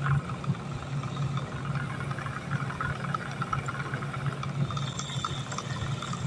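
Wilo circulation pump running with an abnormal noise: a steady hum with irregular rattling over it, the sign of play in the pump's rotor.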